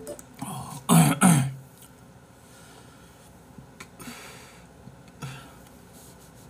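A man clearing his throat twice in quick succession about a second in, two loud, harsh bursts, followed a few seconds later by a softer breath.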